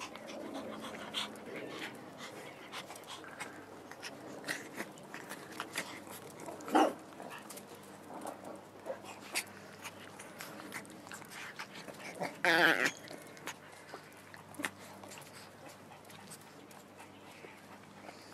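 Pomeranian dogs panting and moving about on grass, with scattered soft clicks and rustles. There is a brief sharp sound about seven seconds in and a louder half-second sound around twelve seconds in.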